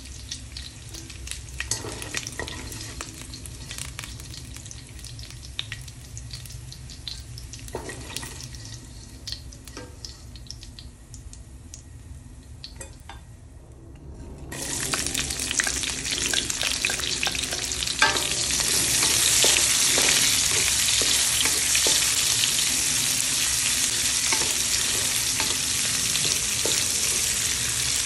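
Pork fat frying quietly in a stainless steel wok, with scattered clicks and scrapes of a wooden spatula and a wire strainer. About halfway through, sliced red onions go into the hot rendered fat and a loud, steady sizzle sets in and carries on while they are stirred.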